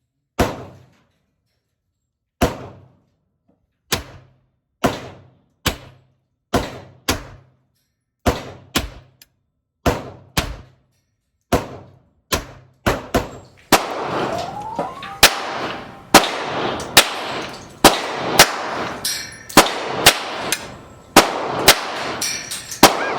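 Pistol shots from a Raven P25 .25 ACP pistol being test-fired after a firing-pin replacement. Single sharp reports come at irregular spacing and closer together in the second half, with steady background noise between them from about halfway through.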